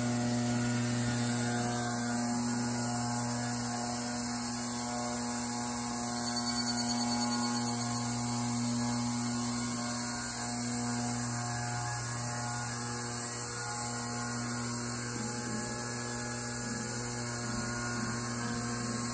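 A steady low hum with a ladder of overtones and a constant high hiss above it, running unchanged.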